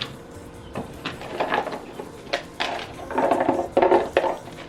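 Kitchen clatter: scattered knocks and clinks of utensils and dishes during food preparation.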